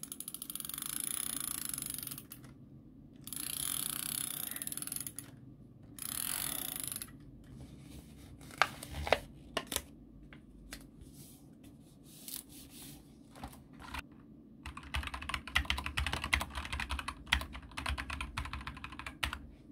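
Typing on a computer keyboard: a few scattered key clicks, then a fast, dense run of keystrokes over the last few seconds. Earlier, three short stretches of hissing noise start and stop abruptly.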